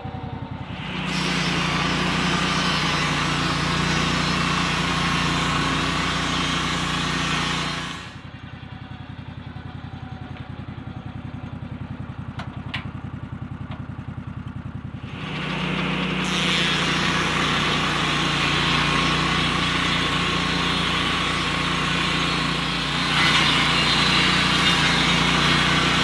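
Lucas Mill swing-blade sawmill: the engine runs throughout while the circular blade cuts through a log. The sawing noise starts about a second in and stops after about eight seconds. For about seven seconds only the engine runs, then the cutting starts again and gets louder near the end.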